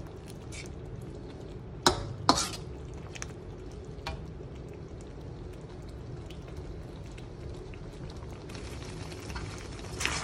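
Thick chilli sambal with sliced lung simmering and bubbling in a pan while a slotted spatula stirs it, with a few clicks and two sharp knocks of the spatula against the pan about two seconds in.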